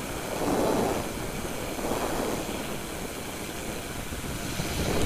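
Light aircraft's engine and propeller running at climb power, heard from inside the cockpit with wind rushing over the microphone; the noise swells a few times.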